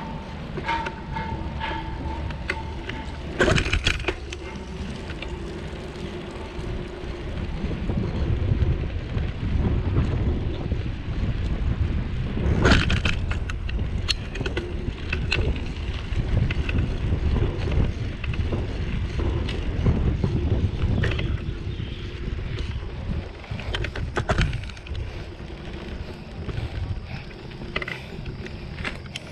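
Wind buffeting a bicycle-mounted action camera's microphone, over the rumble and rattle of the bicycle rolling on rough concrete lanes. A few sharp knocks from bumps stand out, about four seconds in, about halfway, and near the end, and a thin steady whine is heard over the first few seconds.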